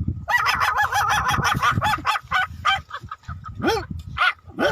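Human voice imitating puppies: a drawn-out, wavering high whine, then a string of short high yelps, about three a second.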